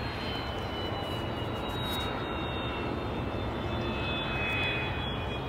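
Airliner engines running: a steady rush with several high whines slowly falling in pitch.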